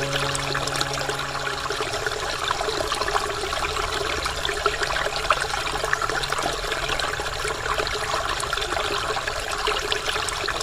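Waterfall water falling and splashing steadily, a continuous rush with many small splashes and trickles.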